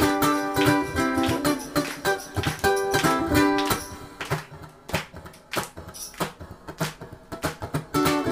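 Solo ukulele playing a melody with chords, then for a few seconds dropping to a sparse steady beat of sharp taps, about three every two seconds, with little pitched sound, before the plucked notes come back near the end.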